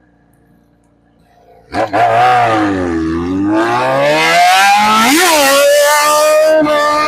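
Yamaha XJ6's 600 cc inline-four engine, quiet at first, then loud from about two seconds in as it is revved under acceleration. The pitch dips briefly, then climbs steadily, with a quick jump and drop in pitch a little past halfway.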